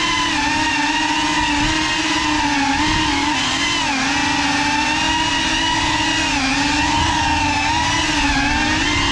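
GEPRC CineLog35 cinewhoop FPV drone in flight: its brushless motors and ducted 3.5-inch propellers give a continuous high buzzing whine whose pitch wavers up and down as the throttle changes, with brief dips around 4 s and 6.5 s.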